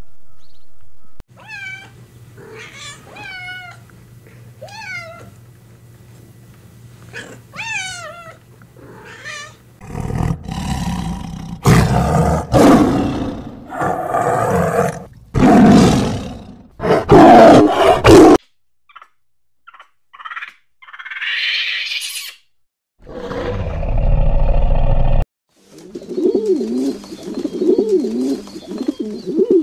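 A string of different animal calls one after another: a run of short, high pitched calls, then several loud roars, then brief calls and a loud low rumble.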